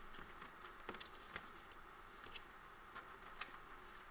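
Faint rustling and scattered light ticks of paper being handled and pressed while glue is spread on it, with one sharper tick near the end.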